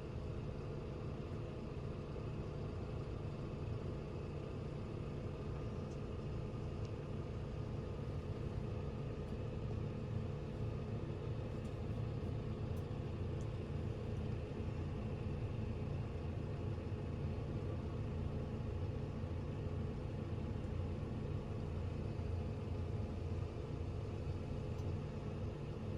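Farm machine engine running at a steady speed, a constant drone that holds even throughout.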